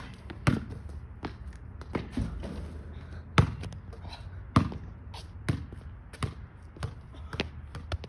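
Basketball dribbled on a paved driveway: sharp single bounces about once a second, coming a little quicker near the end.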